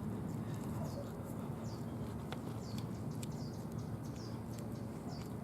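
A small bird chirping over and over, short high chirps that slide downward, over a steady low hum.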